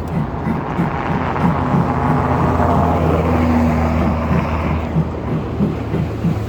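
Ride-on miniature train running along its track, with a steady rhythmic clicking of about two to three beats a second over a low hum. A broader rushing sound swells in the middle and fades away.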